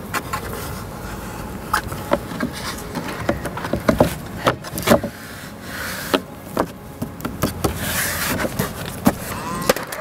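Irregular sharp knocks and clicks from fixing timber cladding boards to a wall with a pneumatic nailer, loudest in a cluster around the middle, over a steady hum.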